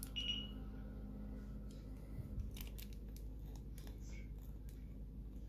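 Faint clicks and scrapes of fingers and long acrylic nails handling a small plastic cosmetic-glitter jar and working at its screw-on lid, over a low steady hum.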